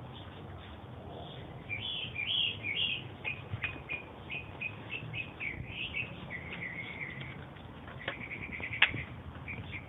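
Birds chirping, a run of quick, varied high chirps and short trills, with two sharp clicks near the end.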